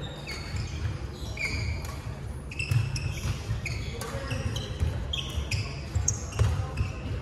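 Badminton players' shoes squeaking in short high chirps on a wooden sports-hall court, over soft footfalls, with a few sharp smacks of rackets hitting the shuttlecock.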